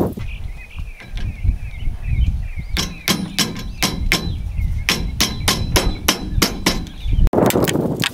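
Hammer tapping on the metal frame of a chainsaw mill: a run of light, ringing blows, about four a second, starting about three seconds in and lasting about four seconds.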